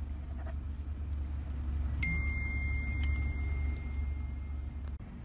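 Steady low hum of a car idling, heard from inside the cabin. A thin, high, steady tone starts about two seconds in and lasts about two seconds.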